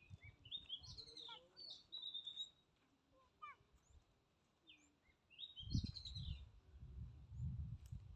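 Birds chirping in short, quick high phrases, two bursts of them about three seconds apart, over a low muffled rumble in the second half.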